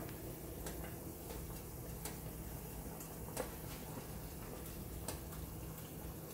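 Handling noise from a phone camera being moved about: light scattered clicks and taps, the loudest about three and a half seconds in, over a steady low hum.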